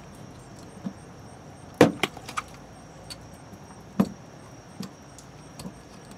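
Clicks and clacks of a plastic RV city water inlet being twisted by hand onto a brass nipple held with locking pliers. There is a quick cluster of knocks about two seconds in and a single sharp one at about four seconds.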